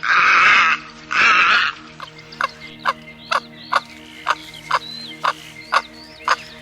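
Heron giving two loud, harsh squawks, each under a second long, a moment apart. A steady run of short ticking calls follows, about two a second, with faint high chirps behind.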